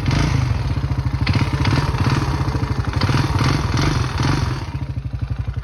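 Honda Rancher 350 ATV's single-cylinder four-stroke engine running with a clattering knock on top of its firing beat, held at raised revs and then dropping back about four and a half seconds in. The noise grows louder with throttle, and comes from a badly scored piston and a worn cylinder.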